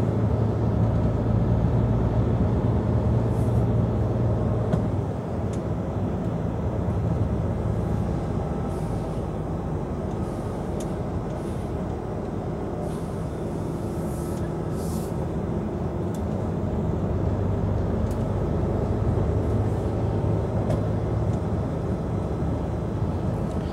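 Heavy truck's diesel engine running steadily under way, with tyre and road noise, heard from inside the cab.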